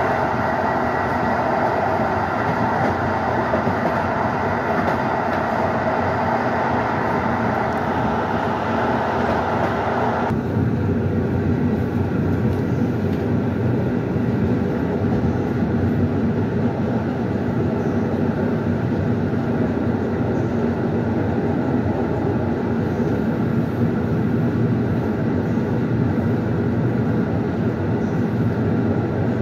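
Passenger train running along the track, heard from inside at the rear of the train: a steady rolling rumble. A brighter hiss over it cuts off suddenly about ten seconds in.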